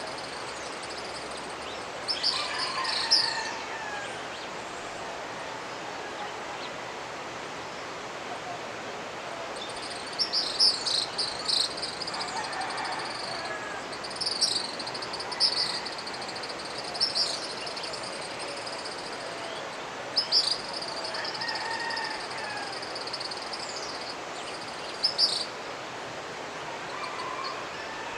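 Steady rush of a mountain river, with high chirping calls from wildlife breaking in over it about six times, each burst a second or two long. Fainter, lower calls come in alongside some of the bursts.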